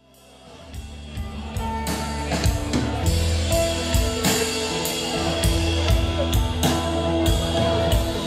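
Instrumental rock trio playing live, drums and electric guitar with steady low bass notes, fading in from silence over the first few seconds.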